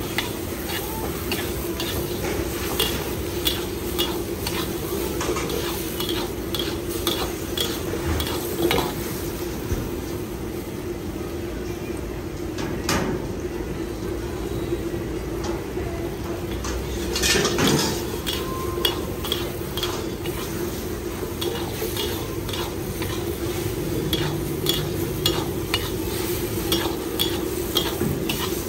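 Metal ladle scraping and clanking against a wok, about one or two strikes a second, as noodles and vegetables are stir-fried, over steady sizzling and a steady hum from the gas burner. A longer, louder scrape comes just past the middle.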